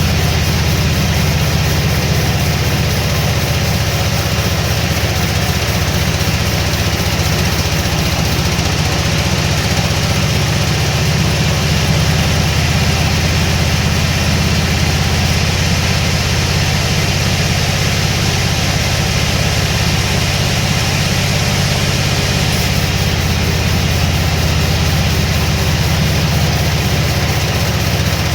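Sawmill machinery running steadily: a continuous low engine-like hum with even mechanical noise over it, no cut clearly starting or stopping.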